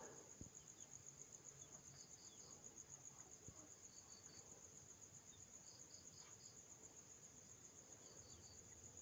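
Near silence, with a faint, steady, high-pitched insect trill throughout and a few short chirps repeated in little groups of two or three.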